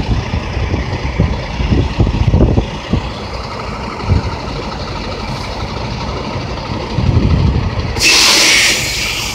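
Semi-truck air brake letting off air in a sudden loud hiss about eight seconds in, lasting about a second. Under it is an uneven low rumble from the truck lot.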